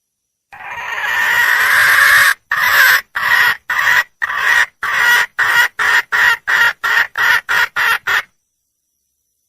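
Red junglefowl hen (wild hen) calling: one long call of about two seconds, then a run of about a dozen short notes that come shorter and faster, stopping about eight seconds in. It is the call of a hen seeking a male.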